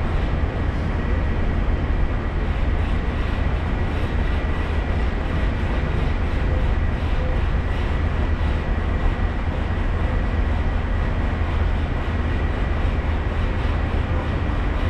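Steady running noise of a moving vehicle: a heavy low rumble under an even rushing noise, with a thin steady high whine held throughout.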